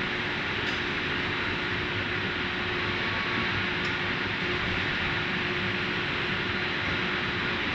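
Steady machine noise from an aluminium billet induction furnace running, a constant hiss with a faint steady hum underneath.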